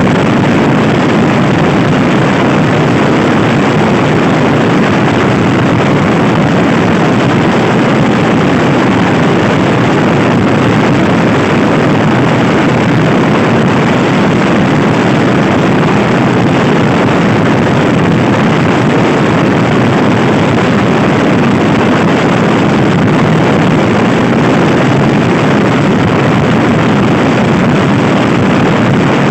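Loud, steady wind rushing over the microphone of a Honda Scoopy-i scooter ridden at speed.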